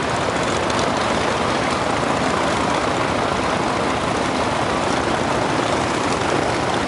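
Jet aircraft engines running steadily as airplanes queue on the taxiway for takeoff, an even rushing noise with no change in level.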